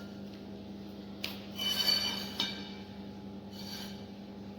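Metal workpiece being handled and scraped: a sharp click about a second in, then two short scraping strokes with a ringing metallic edge, over a steady low hum.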